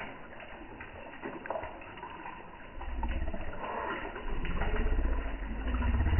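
Koi feeding at the water surface: wet slurps and small splashes as they suck in floating pellets. A low rumble comes in about three seconds in and grows louder toward the end.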